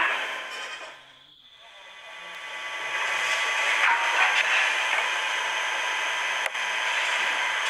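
Steady hiss of background noise swelling up after a brief lull, with faint distant voices about four seconds in and a single sharp click near the end.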